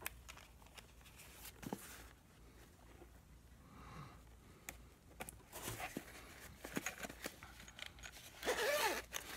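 Zipper of a small black zippered glasses case being worked open by hand, with scattered small clicks of handling and a louder rasp near the end.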